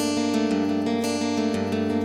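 Instrumental music: acoustic guitar strumming chords over a steady low bass, with no singing.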